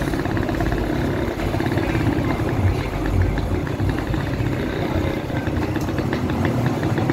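The ridden motorcycle's engine running steadily under way, with a faint, even ticking over the low rumble.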